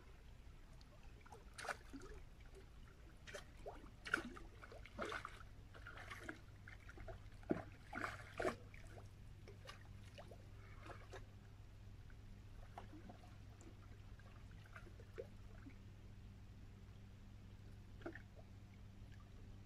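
Faint, irregular small splashes and clicks of water at a rocky shoreline, thickest in the first half, over a low steady hum.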